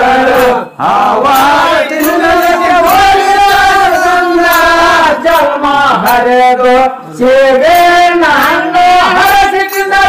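Men singing a Kannada Muharram folk song (Moharram pada) in a loud, chant-like style, their voices holding long, wavering notes.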